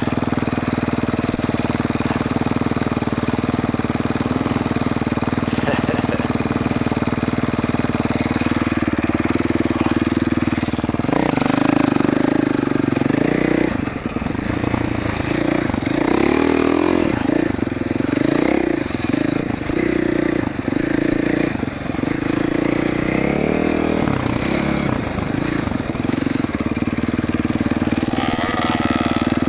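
A 2021 GasGas MC450F dirt bike's 450 cc four-stroke single-cylinder engine running under way. It is steady at first, then from about a third of the way in it is revved up and down again and again, with brief throttle cuts.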